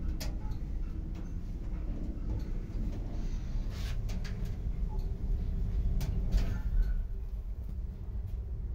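Passenger lift car travelling between floors: a steady low rumble with a few sharp clicks scattered through it.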